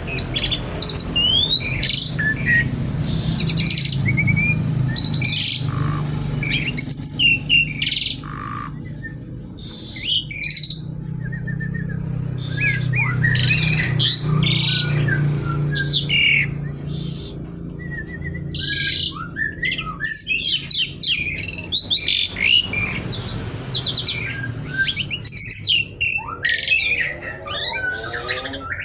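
Asian pied starling (jalak suren) singing a busy, varied song: whistled glides and quick chirps mixed with short harsh, scratchy rattling notes, with hardly a pause.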